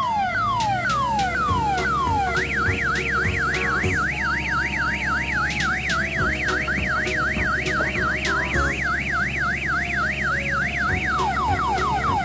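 Electronic siren sound effect dubbed over the footage: a wail of repeating falling sweeps about twice a second, switching about two seconds in to a fast up-and-down yelp, then back to the falling sweeps near the end. A low steady hum runs underneath.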